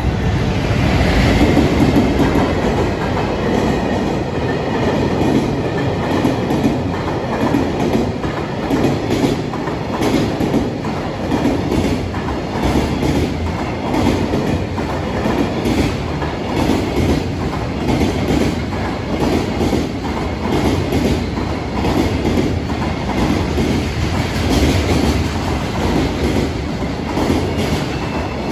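Freight train of container wagons running through a station, its wheels clattering over the rail joints in a steady repeating rhythm under a continuous rumble, loudest near the start.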